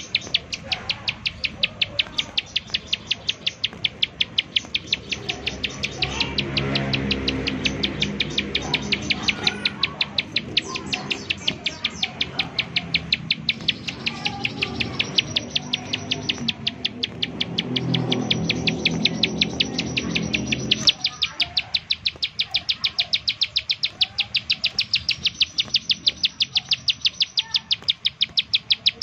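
Ciblek sawah (prenjak sawah, a prinia) calling in its rapid 'nembak' series: an unbroken run of short, sharp high notes at about four a second. Twice a lower background sound swells up under the calls and fades.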